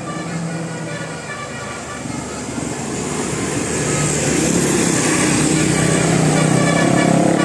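Tour bus drawing near, its engine growing louder from about halfway through, with short pitched notes of a multi-tone 'telolet' musical horn.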